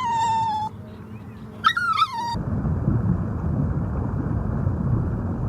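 A cat meowing twice, two short pitched calls that fall away at the end. A little over two seconds in, it cuts to a steady, rough, low noise that lasts the rest of the time.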